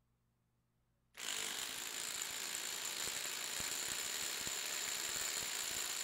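Metabo HPT 36-volt triple-hammer impact driver hammering a bolt in forward under load for about five seconds. It is a dense, rapid rattle of impacts with a thin high whine through it. It starts about a second in and stops at the end.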